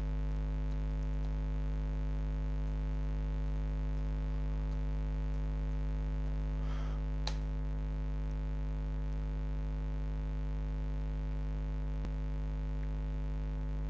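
Steady electrical hum with many evenly spaced overtones, typical of mains hum picked up by the recording setup. A single short click comes a little past halfway.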